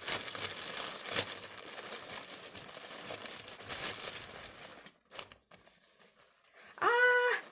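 Plastic packaging crinkling and tearing as a parcel is unwrapped by hand, with scattered crackles. It goes quiet about five seconds in. A short pitched voice-like sound is held briefly near the end.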